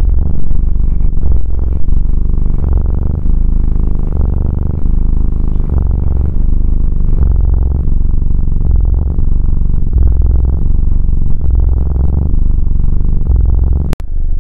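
Tabby kittens purring loudly and close up, the purr swelling and fading about every second and a half with each breath. There is a brief dropout near the end.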